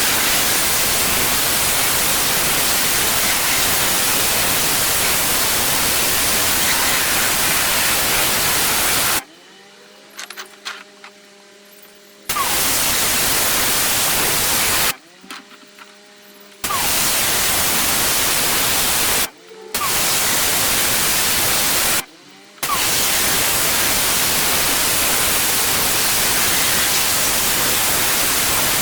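Pressure washer spraying with a steady loud hiss that cuts off abruptly four times as the trigger is released, twice for two or three seconds and twice for half a second, leaving only the machine's faint hum in the gaps.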